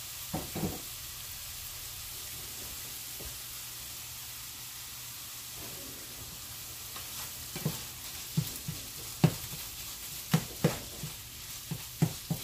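Ground meat frying in a pan with a steady sizzle. A utensil knocks against the pan a couple of times at the start, then repeatedly from a little past halfway, as the meat is chopped and stirred.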